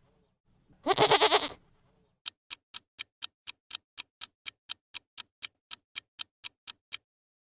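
A goat bleats once, a wavering call of under a second. A clock-like ticking follows, about four ticks a second, runs for several seconds and then stops.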